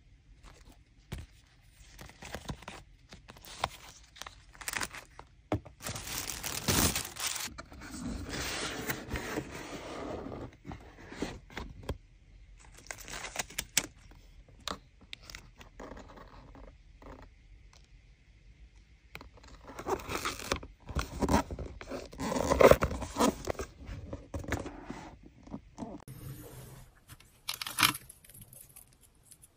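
Clear plastic bags of small trinkets being handled and packed, crinkling and rustling in irregular bursts, with small hard plastic charms and clips clicking against each other. The loudest rustling comes about two-thirds of the way through.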